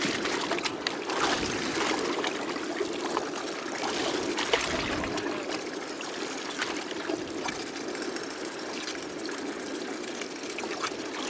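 Choppy sea water lapping and splashing against the side of a small boat, with many small, sharp splashes throughout.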